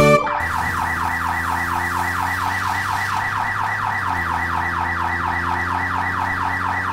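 Cartoon police siren sound effect in a fast yelp, its pitch sweeping about five times a second over a low, steady engine hum.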